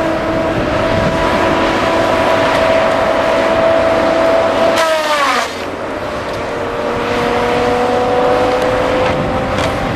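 Madill 2250 tracked logging machine working, its engine and hydraulics running with a steady high whine. About five seconds in, a short burst of hiss comes as the pitch falls sharply and the sound gets quieter, then the whine settles lower and slowly climbs again.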